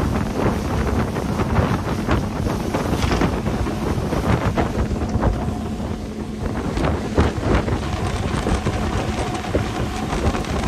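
Wind buffeting the microphone on a small fishing boat running at sea, the outboard motor's steady hum underneath, with irregular gusts and thuds throughout.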